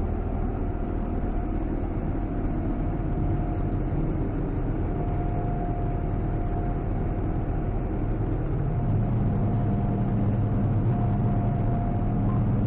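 John Deere combine running steadily under way, a constant low engine rumble with a thin steady whine above it. The low rumble grows heavier about nine seconds in.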